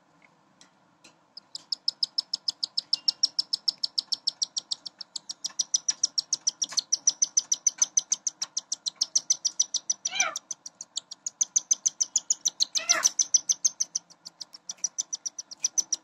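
Cockatiel chicks begging while a parent feeds them: a fast, high-pitched rhythmic chirping of about seven pulses a second, starting a little over a second in. Two louder, wavering squawks break in, around ten and thirteen seconds in.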